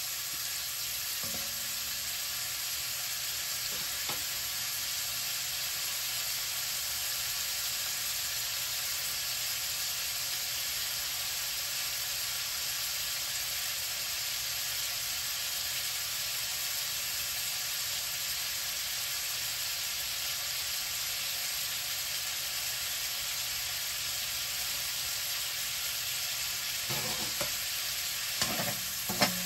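Drumstick pieces frying in hot vegetable ghee in a pan, a steady even sizzle, with a few light knocks near the end.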